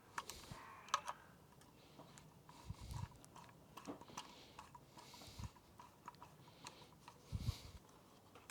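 Scattered light clicks and soft knocks of hand tools working on a bike's aluminium front-mount bracket, tightened by hand, with a few dull low thumps.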